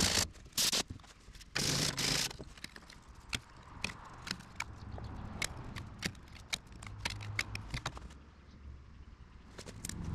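Hand brush scrubbing the rusty steel fuel tank in a few short, loud strokes, followed by a run of light clicks and scrapes against the tank.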